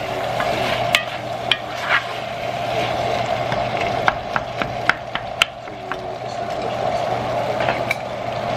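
Ground meat and onions frying in an enamelled cast-iron Staub pot while a wooden spoon stirs them, the spoon knocking and scraping against the pot in a string of sharp clicks, most of them near the middle. A steady hum runs underneath.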